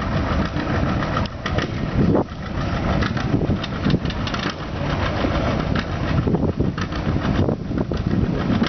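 Antique farm tractor engines running hard under load, pulling weight sleds down a dirt track, with a dense, rough engine noise and irregular knocks and pops.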